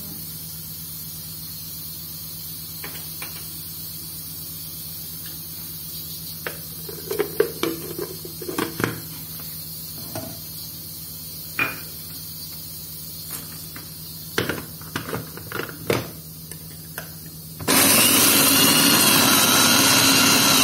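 Plastic clicks and knocks as the lid and motor unit are fitted onto a Kenwood food chopper bowl, then, about three seconds before the end, the chopper's electric motor starts suddenly and runs loud and steady, grinding butter-soaked digestive biscuits into crumbs.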